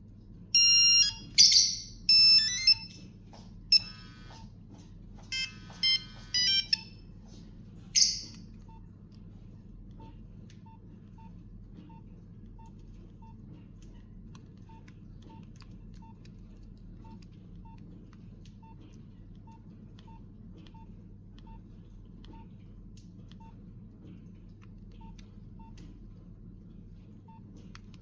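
Nokia 8810 mobile phone playing monophonic ringtone snippets through its small speaker: a string of short, high, beeping melody fragments, each breaking off after a fraction of a second, the last one about eight seconds in. After that only faint soft ticks about once a second over a low hum.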